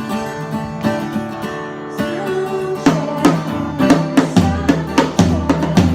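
Live band playing an instrumental passage of a folk-rock song: guitars over a drum kit, with bass notes coming in strongly about four seconds in.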